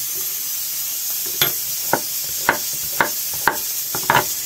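A knife cutting a zucchini on a wooden cutting board: about seven sharp chops, roughly two a second, starting a little over a second in, over a steady hiss.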